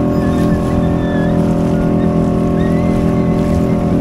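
Small outboard motor running at a steady speed, pushing an inflatable dinghy through choppy water, with water rushing and splashing along the hull.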